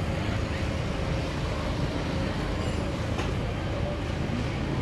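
A steady low mechanical hum with constant background noise, and one light click about three seconds in.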